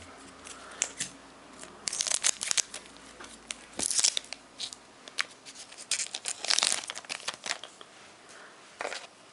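Foil wrapper of a Pokémon card booster pack crinkling and tearing open, with the crackle coming in several short spells, loudest around two, four and six to seven seconds in.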